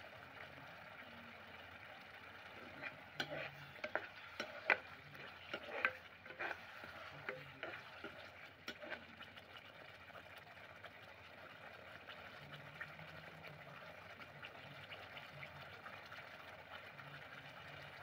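Thick rajma curry bubbling and sizzling steadily in a wide pan over the flame. Between about three and nine seconds in, a metal spatula clicks and scrapes against the pan several times as the curry is stirred.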